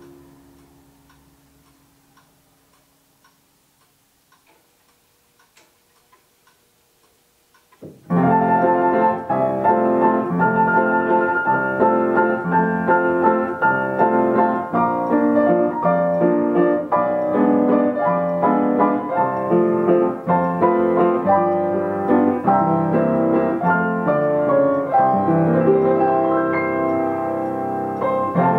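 Yamaha upright piano playing by itself, with nobody at the keyboard. A chord dies away over about two seconds and a few faint ticks sound in the hush. About eight seconds in, the piano starts a new tune and plays on steadily.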